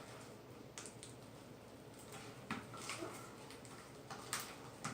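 Slime being squished and stretched by hand, giving a few faint sticky clicks and pops.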